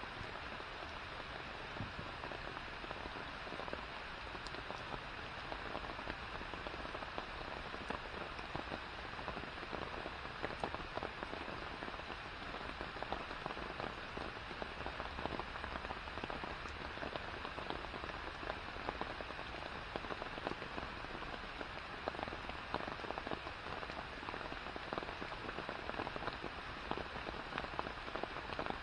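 Rain falling steadily on the surface of a forest pond and the foliage around it: a dense, even hiss of countless drops, with scattered louder individual drop splashes.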